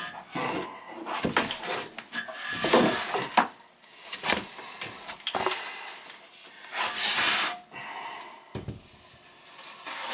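Handling noise of a heavy one-piece porcelain toilet being carried in and lowered toward the floor: irregular scraping and rubbing with a few knocks, loudest about a third of the way in and again about two-thirds in.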